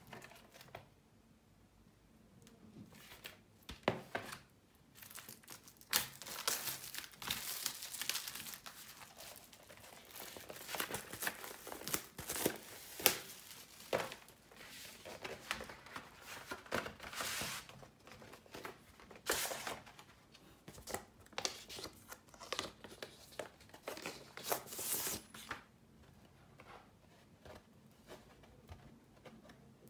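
Crinkling and rustling of plastic and paper record packaging handled close up as a 12-inch vinyl LP is unwrapped and slid out of its sleeve. It comes in irregular bursts from about six seconds in until a few seconds before the end, with a few sharp clicks around four seconds.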